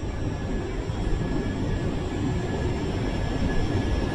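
A Lumo class 803 electric train standing at the platform, giving off a steady low rumble and hum with faint steady high-pitched whines from its equipment, in the noise of the station.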